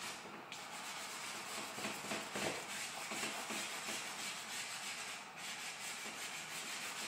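Charcoal scratching and rubbing across drawing paper in many short, quick strokes as a dark area is filled in.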